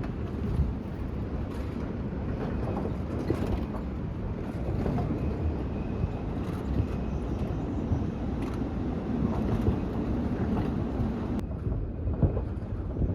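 Steady wind rumble on the microphone over a campfire, with scattered short crackles from the burning wood. The background changes abruptly about eleven seconds in.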